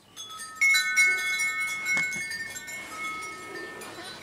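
Chime tones, several struck one after another within the first second, each ringing on and slowly fading; a single sharp click about two seconds in.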